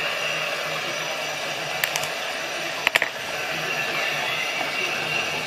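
Steady whirring background hum, with a couple of small clicks about two seconds in and a quick cluster of sharper clicks about three seconds in as the digital caliper's coin-cell battery is handled and picked up.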